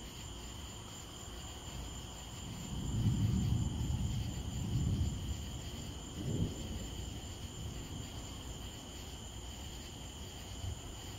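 Steady night chorus of crickets, with a low rumble of distant thunder swelling about three seconds in and dying away over a few seconds.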